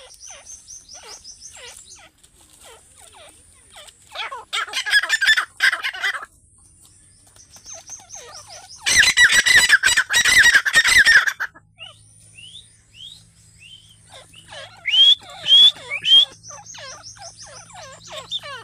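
Grey francolins calling: a steady run of quick chirps and clicks, broken by two loud bursts of rapid, harsh calling, one about four seconds in and a longer one from about nine to eleven seconds, and three loud ringing calls around fifteen seconds.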